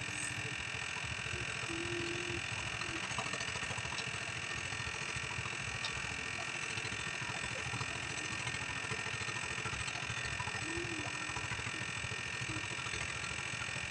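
Engine running steadily at an even idle, a continuous hum with a hiss over it and no change in speed.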